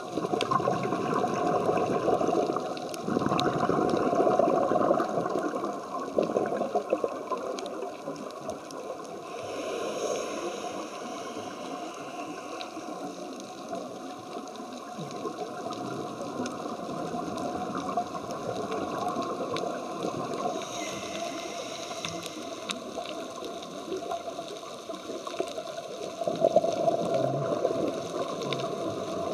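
Scuba diver breathing through a regulator, heard underwater. Each exhale is a rushing, gurgling burst of bubbles, and a higher hiss comes with each inhale, a few slow breaths in all, with faint scattered clicks in between.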